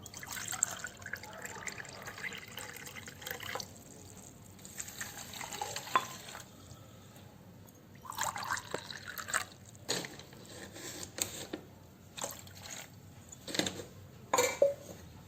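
Water poured into a cooking pot in three splashing bursts, then several short taps and clinks.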